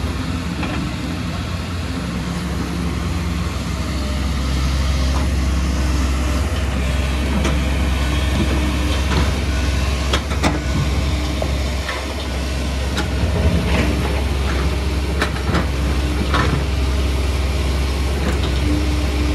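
Kobelco tracked excavator's diesel engine running steadily under load while it digs, a continuous low drone. From about the middle of the stretch, short clanks and knocks of the bucket and loose rock come and go over it.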